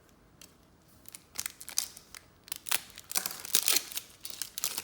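Stiff chrome trading cards being flipped and slid against one another in the hand: a run of short, crisp swipes and clicks starting about a second in and growing denser toward the end.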